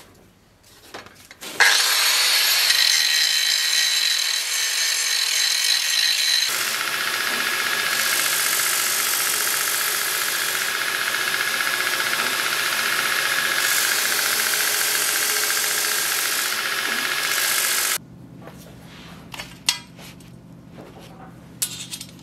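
Belt grinder grinding the steel pommel blank against its abrasive belt, starting a couple of seconds in. The sound changes abruptly about six seconds in and cuts off suddenly near 18 seconds. Light clicks follow at the end.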